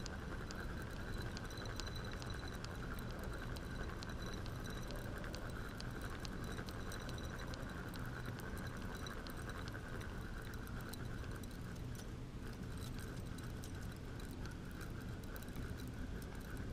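Steady outdoor background noise with many faint, irregular small ticks and clicks.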